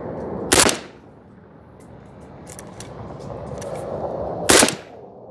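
Two shots from a 5.45×39 rifle, about four seconds apart, each a sharp loud crack with a short echo. Between them come faint light clinks of ejected brass casings landing on concrete.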